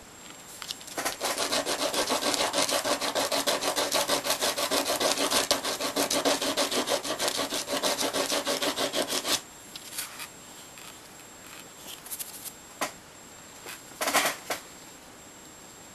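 A small game peg rubbed by hand back and forth on sandpaper, grinding a small chamfer onto its end. A fast, even run of scraping strokes lasts about eight seconds, then stops, and a few short separate scrapes follow, the last one louder.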